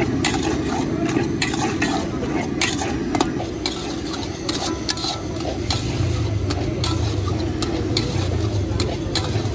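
A spoon stirring peanuts around a large blackened metal pot, with many short scrapes and clinks against the pot over a steady low hum.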